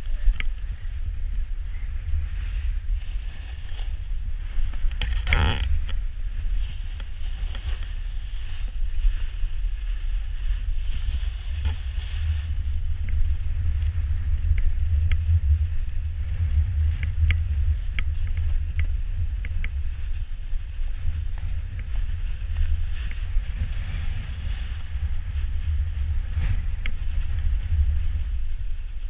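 Wind rumbling on a moving action camera's microphone while snowboarding downhill, with a steady hiss of the board sliding over the snow and a brief louder burst about five seconds in.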